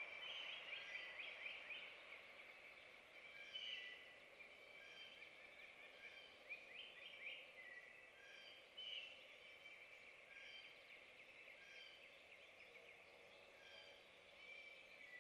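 Faint woodland birdsong: several small birds chirping, with short calls and quick trills repeating throughout.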